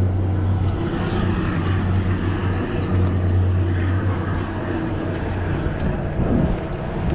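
Steady low engine drone, a continuous hum with noise over it.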